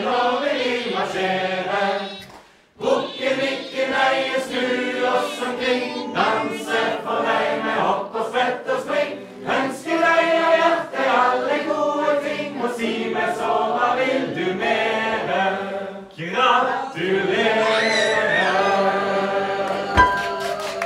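A group of voices singing a Norwegian birthday song together, with a short break about two and a half seconds in. A few sharp knocks come near the end.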